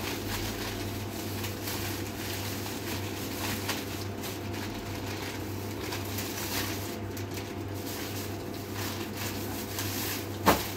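Clear plastic shopping bags rustling and crinkling as goods are packed into them by hand, over a steady low hum. A single sharp knock sounds near the end.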